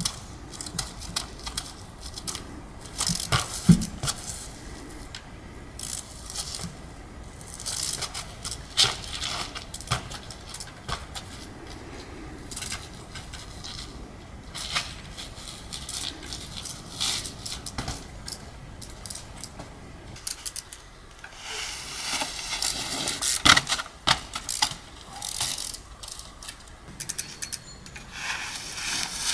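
Trials bike hopping on stone blocks: irregular knocks and clicks of the tyres and bike landing on rock, with metallic rattles and scrapes, and a heavier landing knock about four seconds in.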